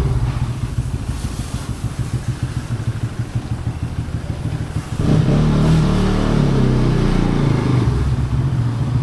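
Motorcycle engine running with a steady low rumble. About five seconds in it abruptly becomes louder and more pitched.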